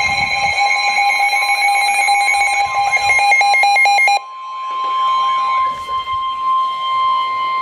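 Emergency Alert System alert tones announcing a flood warning. A loud, steady electronic alarm of several layered tones cuts off about four seconds in. After a brief dip, a single steady tone starts and holds.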